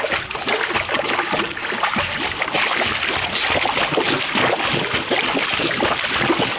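Rapid, continuous water splashing and churning as a Staffordshire terrier puppy paddles hard with her legs in a pool, held up by her front legs.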